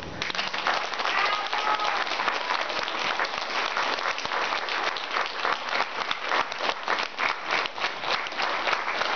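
Audience applauding: many people clapping together, beginning suddenly and keeping up steadily.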